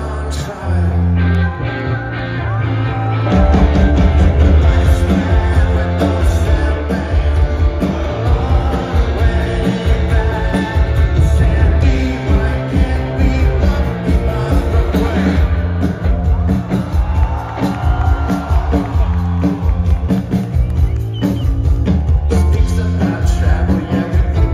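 Rock band playing live through a festival PA, heard from the crowd: a male voice singing over electric guitars, bass and drums. The full band with heavy bass and drums comes in about three seconds in.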